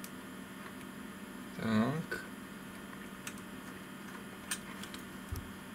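Steady low electrical hum, with a few faint clicks as a small coaxial attenuator is unscrewed from the spectrum analyzer's RF input connector.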